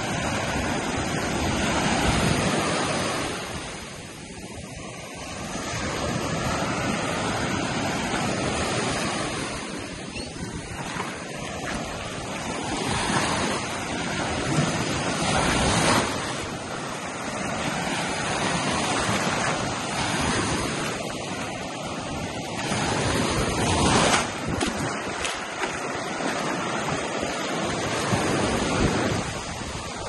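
Surf on a sandy beach: small waves breaking and washing up the shore in a steady hiss that surges louder and falls back every few seconds. Wind buffets the microphone now and then.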